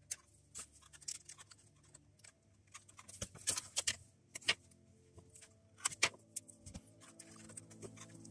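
Scattered light clicks and taps of thin wooden strips being handled and pressed into place on a model ship's deck, busiest in the middle, over faint background music.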